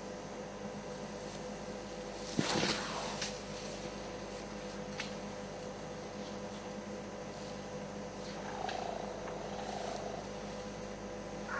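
African elephant feeding in the bush: one loud sharp crack of vegetation snapping about two seconds in, then a few lighter snaps, over a steady electrical hum.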